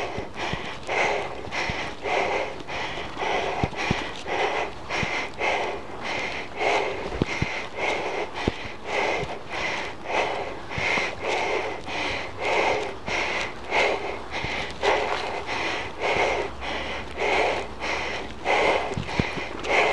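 A mountain biker panting hard while riding, rhythmic breaths in and out at about one a second: the sound of heavy exertion on the bike.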